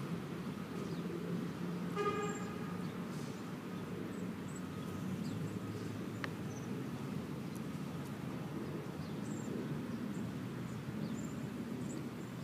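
Outdoor city background: a steady low rumble of distant traffic, broken about two seconds in by one short car-horn toot. Faint high chirps of small birds come and go, and there is a single sharp click a little after six seconds.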